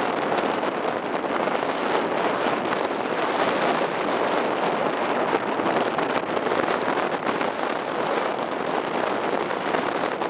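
Strong wind blowing over the microphone aboard a ferry under way: a steady, dense rushing noise with slight gusty flickers.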